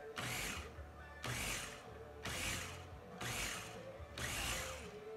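Small electric food chopper pulsed five times in short bursts about a second apart, chopping vegetables for salsa.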